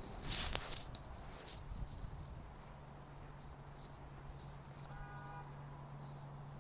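Insects chirping in quick high-pitched pulses in woodland, with a burst of rustling through brush in the first second and a half, and a faint low hum from about two seconds in.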